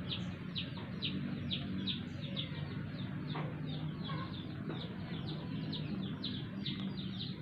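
A bird peeping over and over in short falling chirps, about three a second, over a low steady hum.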